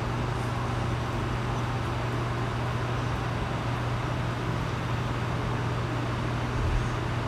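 Steady low mechanical hum with a broad rushing noise over it, unchanging throughout, with one brief low bump near the end.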